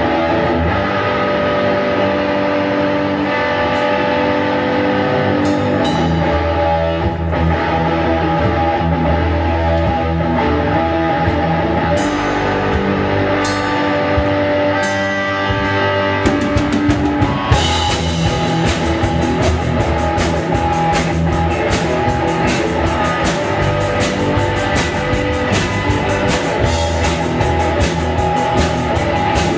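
Rock music: guitars with a drum kit. The drums get fuller and busier a little over halfway through, with a steady rapid beat from then on.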